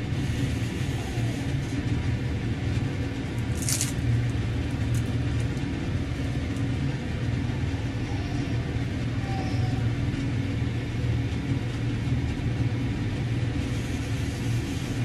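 A steady low mechanical hum that holds an even level throughout, with one brief high click about four seconds in.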